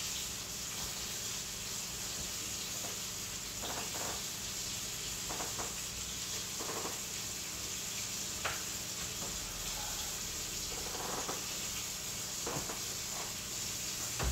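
Chicken frying in a skillet: a steady sizzle, with a few brief knocks from handling scattered through.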